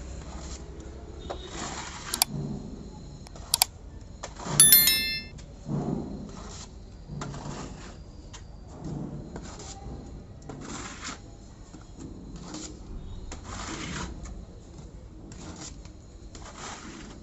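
Repeated scraping strokes, about one a second, of a metal blade or trowel working texture material on a wall, with a few sharp clicks and a brief metallic ring about five seconds in.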